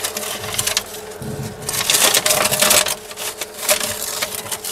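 Scraping and rubbing on the bare wooden boards inside an old trunk, an irregular run of scraping strokes that is loudest about two seconds in, as the remains of the old paper lining are cleaned off.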